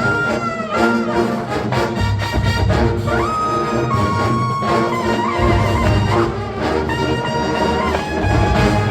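College marching band playing an arrangement of early-1980s funk, led by its brass: trumpets holding high notes, one scooping up into a long held note about three seconds in, over a pulsing low drum and brass beat.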